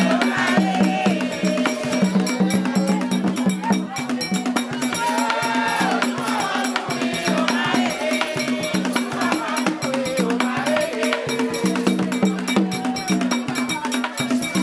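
Haitian ceremonial music: rattles and hand percussion keep up a dense, fast rhythm over a steady low pulse, with sung phrases rising and falling every few seconds.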